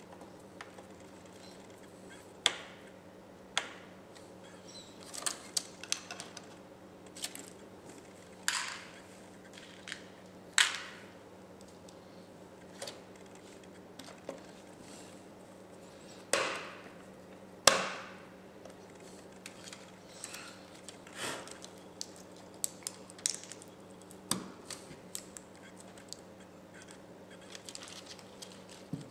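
Irregular clicks, taps and knocks of an opened laptop's plastic chassis and parts being handled with a small screwdriver and fingers while cables are routed into it. A low steady hum runs underneath.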